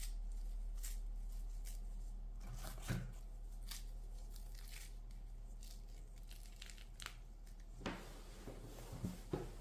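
A crisp baked coconut cookie with a puff-pastry base being broken in half by hand, giving faint scattered crackles and crunches, with a louder crack about three seconds in and several more near the end. The crackle is the sign of the flaky, crunchy bake.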